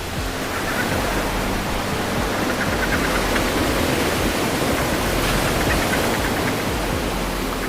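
Steady rushing water noise, like ocean or underwater ambience, with a few short trains of rapid clicks.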